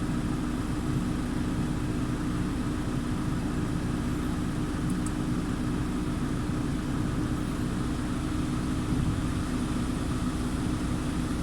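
Car engine idling steadily with the air conditioning switched on, a constant even hum.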